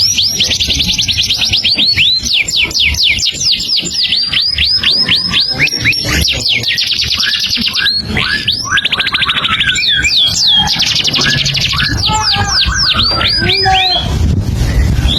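A songbird singing continuously in long, fast runs of high, sweeping whistled notes, many per second, switching between phrases and rapid trills without a pause.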